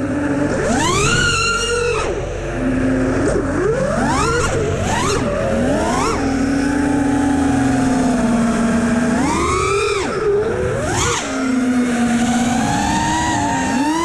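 FPV freestyle quadcopter's brushless motors and propellers whining. The pitch swoops sharply up and down again and again as the throttle is punched and cut, with a steadier lower hum held for about three seconds mid-way.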